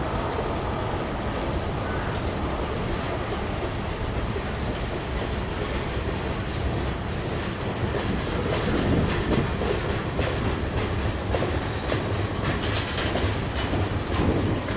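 Freight train of boxcars and then tank cars rolling slowly past, a steady rumble of steel wheels on rail. Sharp wheel clicks come more often from about eight seconds in.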